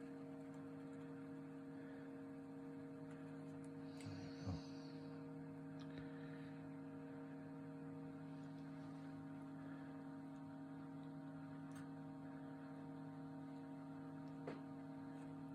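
Steady low electrical hum made of several even tones, with a faint brief high sound and a soft knock about four seconds in.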